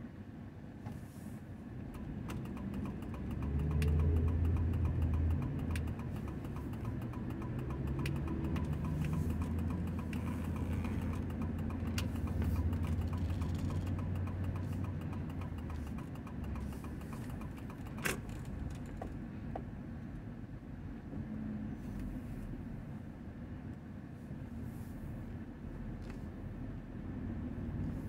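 Vehicle engine and road noise in traffic, a low rumble that swells about three seconds in and eases off after about sixteen seconds. A single sharp click about eighteen seconds in.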